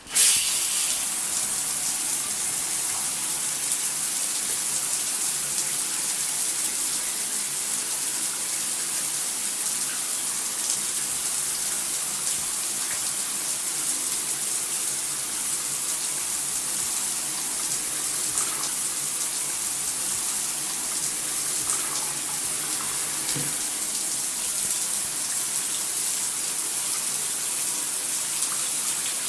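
Shower spray running: a steady hiss of falling water that comes on suddenly at the start with a brief louder gush.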